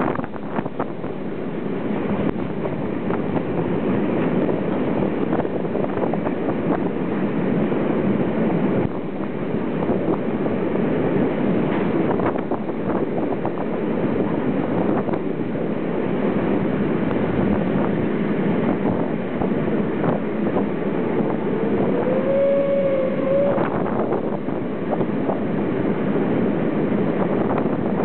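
Steady running noise of a passenger train crossing a high steel railway viaduct: wheels rumbling and rattling on the rails, heard through an open coach window with wind on the microphone. About three quarters of the way in, a short pitched tone rises slightly and holds for about a second.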